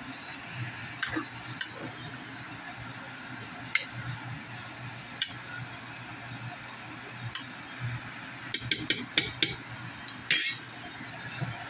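A cooking utensil stirring soup in a non-stick frying pan, clinking and tapping against the pan now and then, with a quick run of clicks about eight and a half seconds in and a short louder scrape just after. A low steady hum runs underneath.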